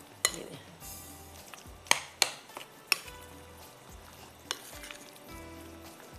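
Metal spoon stirring chicken pieces in a wet marinade of egg white and cornflour in a glass bowl, with about five sharp clinks of the spoon striking the glass.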